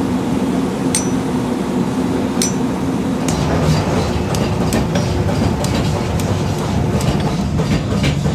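Metal being struck and handled in a blacksmith workshop: two sharp ringing metal clinks, at about one and two and a half seconds in, then a run of lighter taps a few a second, over a steady machine hum that grows heavier about a third of the way in.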